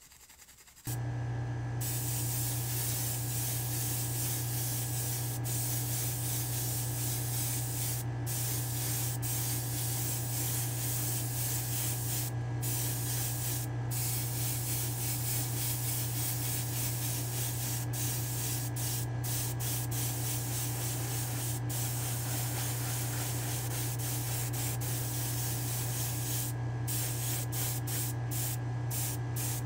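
Airbrush spraying a sealer coat onto a small diecast truck body. It starts about a second in as a steady hiss of air and paint that breaks off for a moment several times, most often near the end, over the steady low hum of the spray booth's fan.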